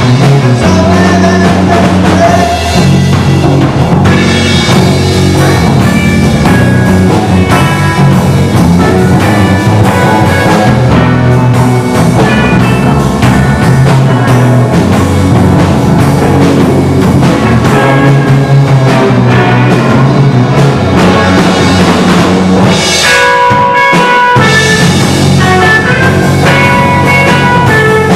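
Rock music with drum kit and guitar: an instrumental passage with a steady beat.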